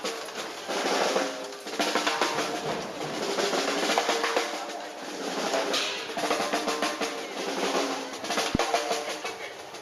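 Drum-heavy parade music: busy percussion strokes with held pitched notes beneath.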